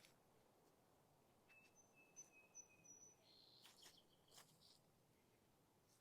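Near silence with faint bird calls: thin, steady whistled notes, two pitches at once, starting about a second and a half in and stepping to other notes around the middle, along with a couple of faint clicks.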